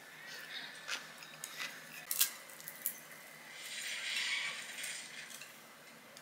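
Chopsticks clicking against ceramic dishes several times, the sharpest about two seconds in. About four seconds in comes a crisp rustling as a fried chive pancake is pulled apart with chopsticks.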